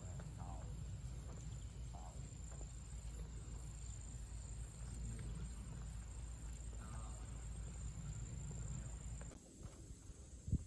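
Outdoor summer ambience: a steady high insect drone over a low rumble of wind on the microphone. About nine seconds in the rumble drops away, and a single sharp knock comes near the end.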